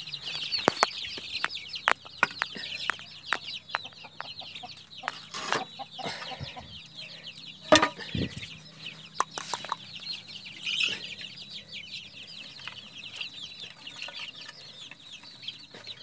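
A flock of young chicks peeping continuously, with scattered knocks and rustles as feed troughs are set down and filled; the loudest knock comes about eight seconds in.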